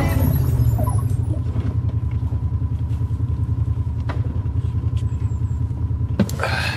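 Side-by-side UTV running as it drives, a loud, steady low rumble with a faint steady whine over it and a single sharp click about four seconds in.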